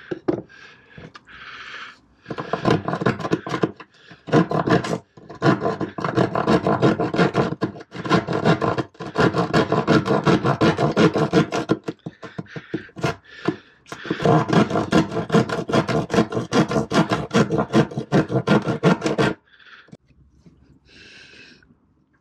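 Small hand saw rasping back and forth through a fibreglass cockpit floor: fast strokes in runs of a few seconds with short pauses between, stopping a few seconds before the end. The cut is enlarging a hole to get past rotten core to solid core.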